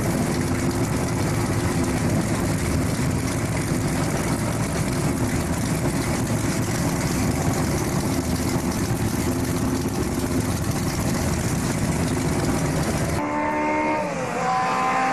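Engines of several historic racing saloon cars running together, a dense steady rumble. Near the end, after a cut, a single race car engine is heard alone, its pitch dropping sharply and then climbing again.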